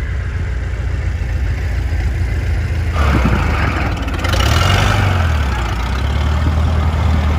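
Car engine running steadily at low revs, its pitch rising briefly and settling back about four and a half seconds in. A louder rushing noise comes in about three seconds in.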